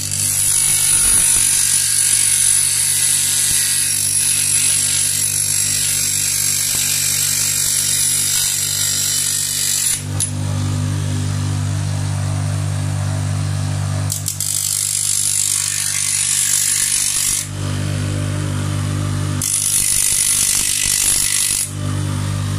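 Bench grinder running with a steady motor hum while a metal tube is pressed against its spinning disc and cut: a harsh, high grinding hiss for about ten seconds, then, after a pause with only the motor humming, two shorter bursts of grinding of a few seconds each.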